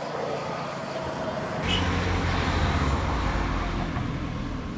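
Road traffic going by: a steady hum of passing cars and motorbikes, louder with a stronger low engine hum from about a second and a half in.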